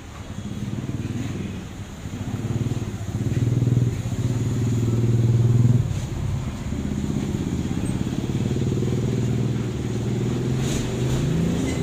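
A small engine running steadily, its pitch stepping up and down; loudest about halfway through, then climbing again near the end.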